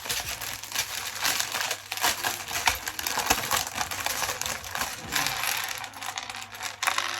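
Dense crinkling and rapid clicking from handling LEGO parts: plastic parts bags rustling and small plastic bricks clattering.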